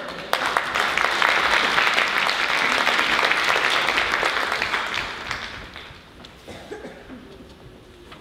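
Theatre audience applauding: clapping breaks out sharply just after the start, holds for about five seconds, then dies away.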